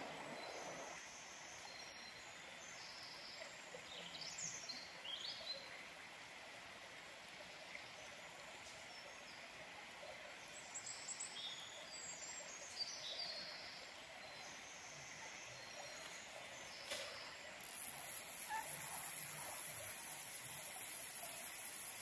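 Songbirds singing in short, high chirps and trills over the faint, steady wash of a river.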